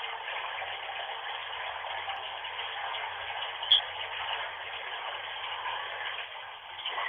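Bath tap running steadily into the tub, a continuous rushing hiss recorded on a Nokia phone, which cuts off the highs. A single short click about halfway through.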